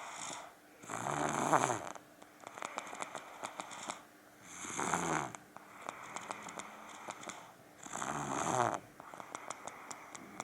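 A two-year-old child snoring: three loud snores about three and a half seconds apart, with quieter crackling breaths between them.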